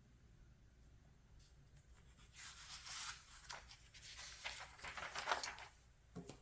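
Glossy magazine pages rustling and sliding as they are turned by hand for about three seconds, followed by a short soft knock near the end.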